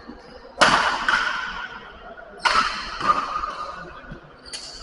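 Badminton rackets striking a shuttlecock in a rally: three sharp hits about two seconds apart, each followed by a long echo in the hall.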